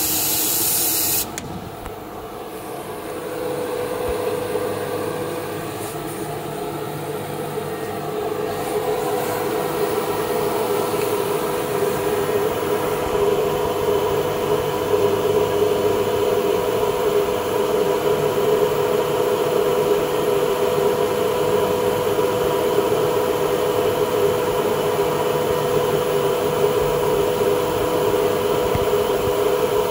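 CNC router running with a steady mechanical hum that slowly grows louder. It is preceded by a loud hiss that cuts off suddenly about a second in.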